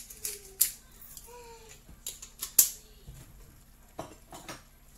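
Hand-held pepper mill grinding black pepper: a few short, crisp grinding clicks, the loudest about two and a half seconds in, then a couple of softer knocks near the end.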